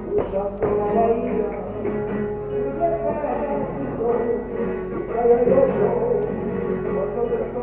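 Live flamenco music, with guitar and a sung vocal line, and a few sharp knocks near the start.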